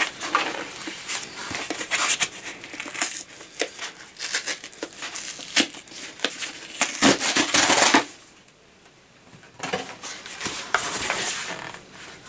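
A small shipping package being opened and handled by hand: irregular crinkling, rustling and tearing of the packaging, with one louder burst of about a second some seven seconds in, then a short lull before the handling resumes.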